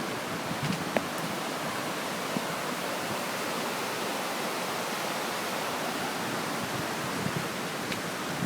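Steady rushing of the flood-swollen Bronx River's fast-flowing water.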